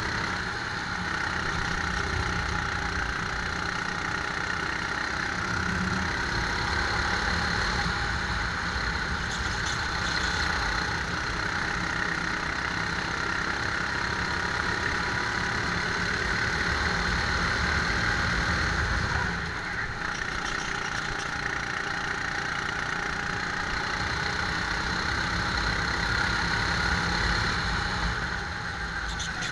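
Rental go-kart's small engine running steadily as the kart laps the track, heard close up from on board; the engine note drops briefly about two-thirds of the way through and again near the end.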